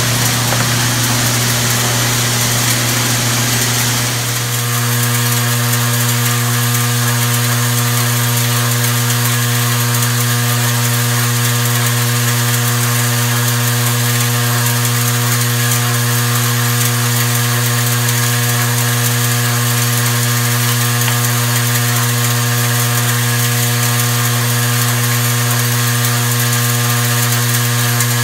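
Rotary brass-case feeder running: a steady electric machine hum under the scraping and jostling of brass cartridge cases on the turning plate. The hum settles into a steadier, purer tone about four seconds in.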